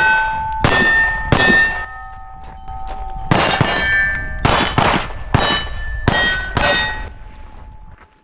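Rapid pistol shots on steel targets, each shot answered by the bright ring of a struck steel plate, about nine hits with a pause of roughly two seconds in the middle while a plate's ring dies away.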